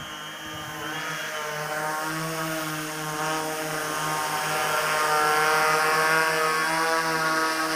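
Six-rotor hexacopter with U7 motors and 18-inch propellers flying overhead: a steady multi-tone propeller hum that grows louder through the middle and eases slightly near the end.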